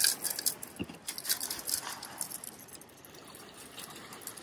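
Crinkling and rustling of a boxed stuffing mix's packaging being opened, with a soft thump about a second in, then a fainter rustle as the dry crumbs are poured into a metal pot.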